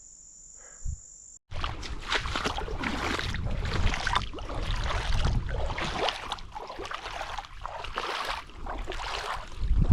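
A steady high insect trill that cuts off abruptly about a second and a half in, followed by loud, irregular rustling and a low rumble.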